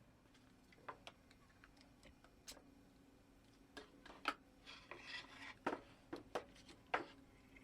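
Faint scattered clicks and light knocks of scrap-wood jig parts being handled and set together during the glue-up, with a short scraping rub about five seconds in.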